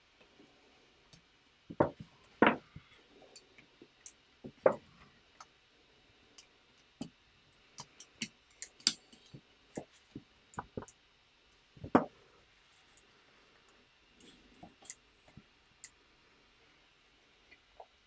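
LEGO bricks being pressed together and handled on a model car: scattered sharp plastic clicks and knocks, several louder snaps among many faint ticks.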